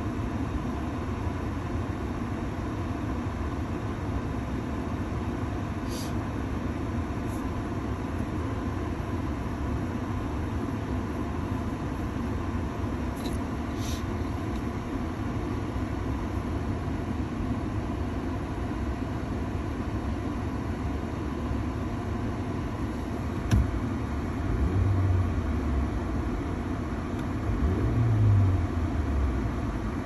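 Ford Maverick's heater blower fan running on full, a steady rush of air from the vents over a low rumble. A sharp click about three-quarters of the way through, then two low bumps near the end.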